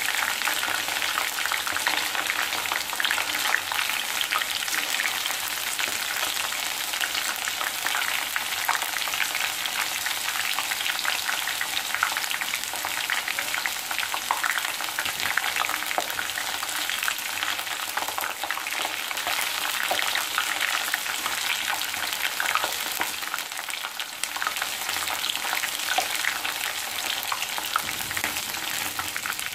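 Batter-coated ivy gourd slices deep-frying in hot oil: a steady, dense sizzle full of fine crackles. The oil is still bubbling hard, the sign of a batch still giving off moisture and not yet crisp. Near the end a wire spider strainer stirs through the oil.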